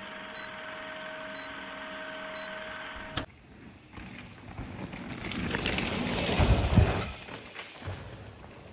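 An old-film countdown effect: a steady hum with crackle. It cuts off about three seconds in, and then mountain bikes roll past on a dirt trail, the tyre noise rising to a peak about seven seconds in and fading as the riders move off.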